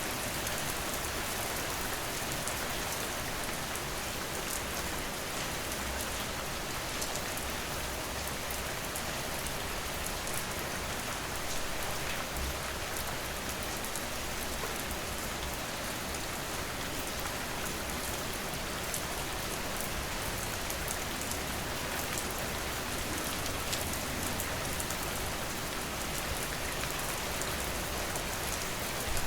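Steady heavy rain falling on hard surfaces, a dense even hiss with individual drops pattering through it.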